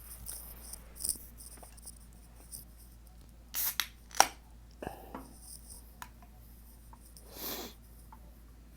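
Scattered handling noises in a small room: short rustles, a sharp click just after four seconds, and a softer breathy burst near the end.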